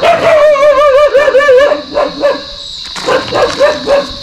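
Injured young macaque crying in distress: one long, loud, wavering call, then a run of shorter cries.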